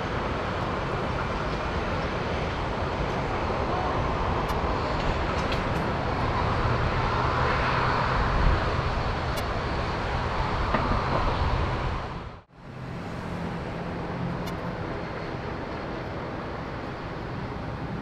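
Steady aircraft engine noise across an airfield, swelling for a few seconds in the middle. Near the middle the sound drops out abruptly for a moment, then comes back.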